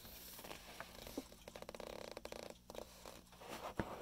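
Handling noise from a plastic Nairi music-box alarm clock being turned over in the hand: a few light clicks, then, about a second and a half in, a quick run of small even clicks lasting just over a second, and a sharper knock near the end.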